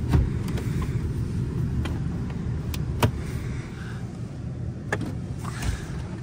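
Minivan side-door handle pulled three times, its latch giving a sharp click each time while the door stays frozen shut. Underneath runs the steady low rumble of the running van and its heater.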